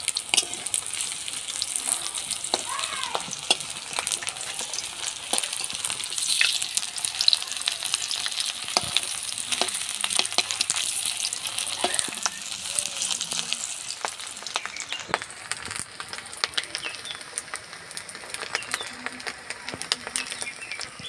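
Rice patties coated in puffed-rice powder sizzling as they shallow-fry in oil in a metal wok, with frequent scrapes and clicks of a flat metal spatula turning them over. The sizzle eases slightly after about fifteen seconds.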